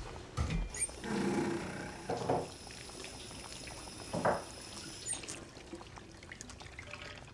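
Water running from a kitchen tap into a sink, turned on about a second in and off about four seconds later, with a couple of dull knocks while it runs.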